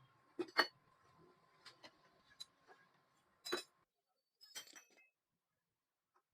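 A series of light metallic clinks and taps, about seven in all, spread over the first five seconds. A faint steady tone runs under them and stops a little before four seconds in, then it is nearly silent.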